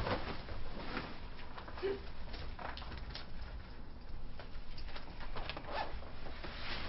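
Clothes rustling as a man undresses, his shirt coming off and his belt being pulled out through the trouser loops, with a few short scrapes and clicks.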